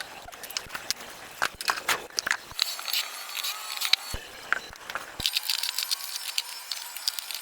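Handling noise: irregular clicks, taps and scraping, with a stretch of scratchy hiss about three seconds in and another near the end.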